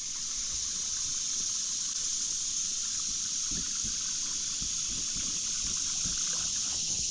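Steady outdoor ambience on a creek: an even, high-pitched hiss, with faint soft ticks and trickles lower down.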